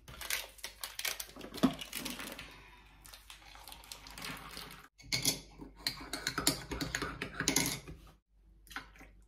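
A metal spoon clinking and scraping in a ceramic mug, then hot water poured from a kettle into the mug, then another run of quick spoon clinks against the mug.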